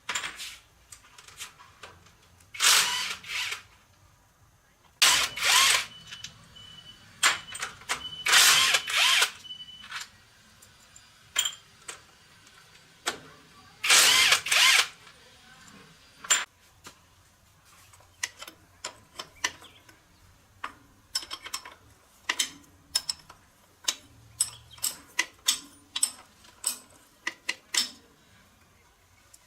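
Workshop tool work on a starter motor: four loud bursts of a power tool about a second each, then a quick run of sharp metallic clicks and taps from hand tools.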